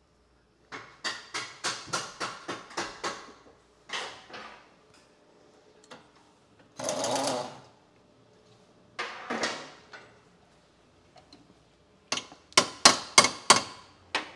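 Workshop tool noise from work on a car's suspension: two quick runs of sharp metallic blows, about four a second, with single knocks and two short noisy bursts in between.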